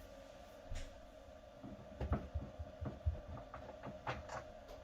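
Scattered light clicks and knocks of hand tools working at the screws that fix a cassette toilet to the floor, as the fixings are undone. A faint steady hum runs underneath.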